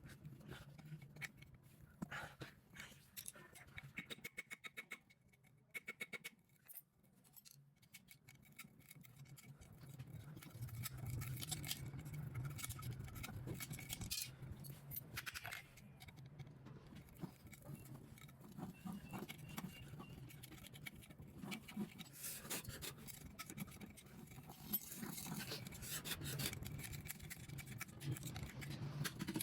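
Faint clinks, taps and scraping of hand tools and metal parts while working inside a monoblock water pump, prising out the old seal stone. A low steady hum comes in about ten seconds in.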